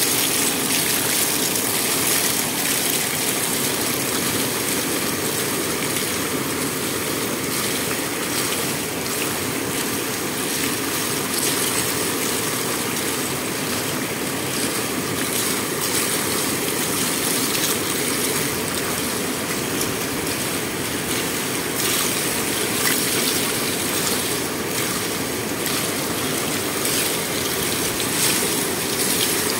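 Shallow water spilling steadily over a stone ledge: a constant rushing.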